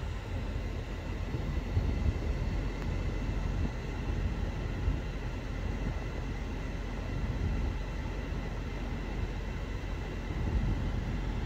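GMC Sierra's Duramax turbo-diesel idling, a steady low rumble heard inside the cab.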